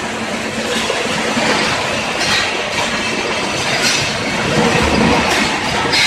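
Loud, steady foundry noise at an induction furnace holding molten metal: a dense rattling clatter over a steady low hum.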